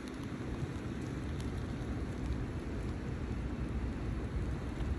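Steady outdoor weather noise: a low rumble of wind on the microphone under an even hiss of falling wet snow.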